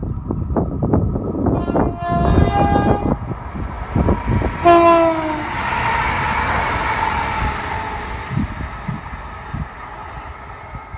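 Train horn blowing twice: a first blast about two seconds in, and a louder, shorter one about five seconds in whose pitch drops slightly. A rush of train noise follows and slowly fades.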